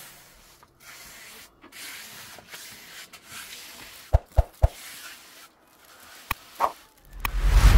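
Gritty scraping and rubbing strokes on a rough surface, with three sharp knocks about four seconds in and one more a couple of seconds later, then a loud rushing sound that swells near the end.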